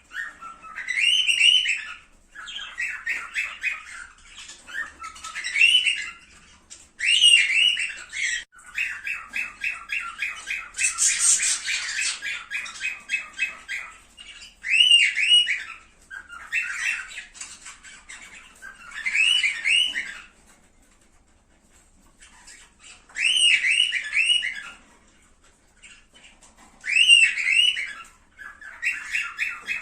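Cockatiels calling in repeated bursts of rapid, chattering chirps and squawks, each phrase lasting a second or two with short pauses between.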